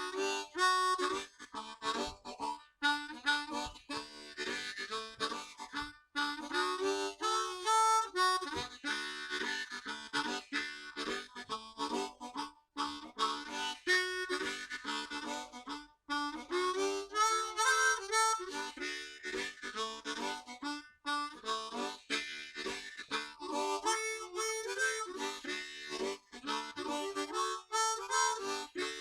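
Background music led by a harmonica playing a melody of short, changing notes.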